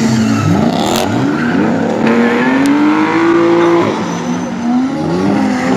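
Several drift cars' engines revving up and down at different pitches together, over the screech and hiss of tyres sliding and spinning.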